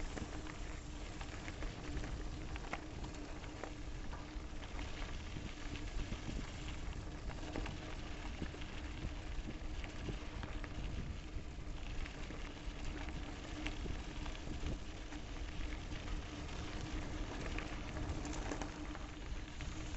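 Continuous crunching and crackle of travel over a loose gravel trail, full of small irregular clicks, with a faint steady hum underneath.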